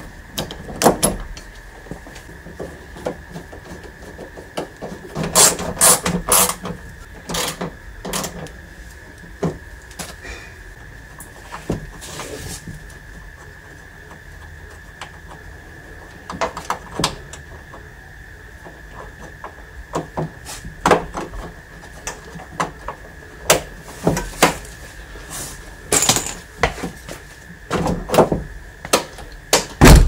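Irregular clicks, knocks and rattles of a Toyota Previa's door handle and trim parts being handled and fitted back into the front door, with a run of heavier knocks near the end. A faint steady high tone sits underneath.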